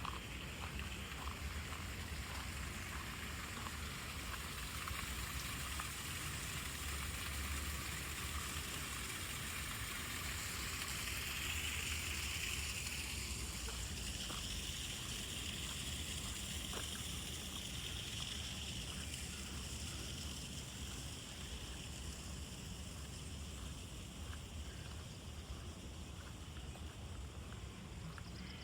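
Steady rushing of running water, with a continuous low rumble underneath.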